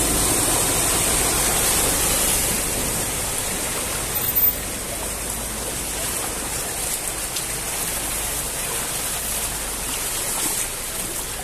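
A car driving through deep floodwater: a steady rush and splash of water from its bow wave, loudest at first and easing a little as the car moves away.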